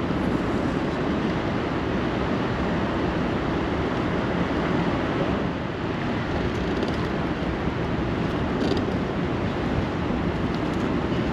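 Steady rush of fast, churning river current in the tailwater just below a hydroelectric dam.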